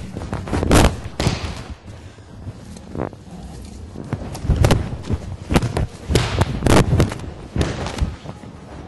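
Dull thuds of bodies landing on a padded mat as aikido throws are taken with breakfalls, repeated every second or two, with a cluster of heavier impacts about two-thirds of the way in.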